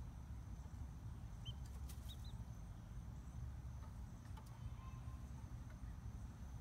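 Young chickens peeping: three short high peeps between about a second and a half and two and a half seconds in, over a low steady rumble.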